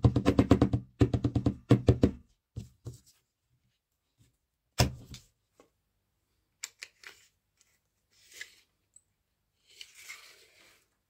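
Hand-handling of a homemade chalk line built from a tape measure: a fast run of clicks for about two seconds, one sharp knock about five seconds in, then a few light clicks. Near the end come soft scraping rustles.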